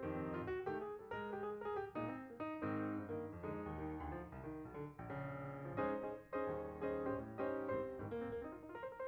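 Background piano music, a run of separate notes moving up and down in pitch.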